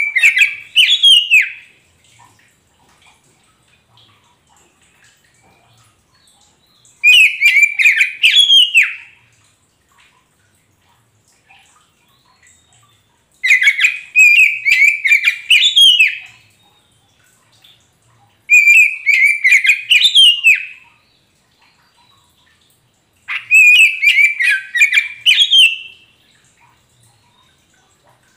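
Oriental magpie-robin (kacer poci) singing in five separate phrases of about two to three seconds, each a quick run of high whistled notes and sharp clicks, with a few seconds of quiet between phrases.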